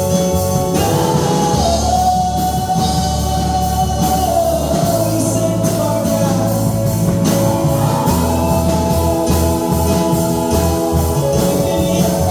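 Church music: voices singing a slow gospel-style song with instrumental accompaniment, long held notes over a steady bass.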